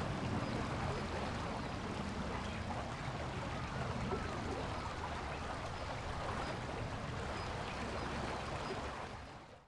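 Steady murmur of a shallow river flowing over stones, fading out near the end.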